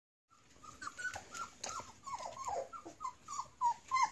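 Young Collie, Saint Bernard and Great Pyrenees cross puppies whimpering. The sound is a quick run of short, high-pitched whines, several a second, each dropping in pitch.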